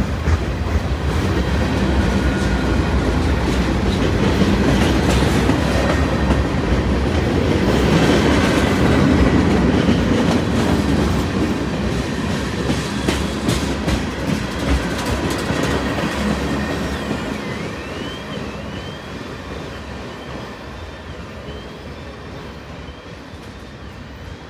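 Freight train cars rolling past on the rails, wheels clicking over the track. The rolling is loudest about a third of the way in, then fades steadily as the train moves away.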